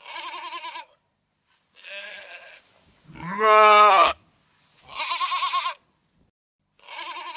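Sheep bleating five times in quick succession, each a wavering "baa". The third call is the loudest and longest.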